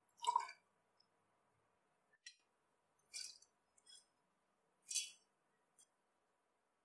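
Kitchenware being handled: about six short, separate clinks and taps, the loudest at the start and about five seconds in.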